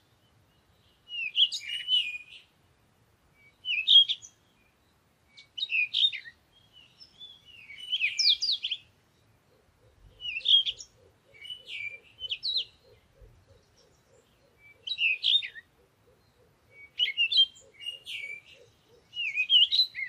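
Bird chirping in short repeated phrases, each about half a second to a second long, coming every one to two seconds with silent gaps between.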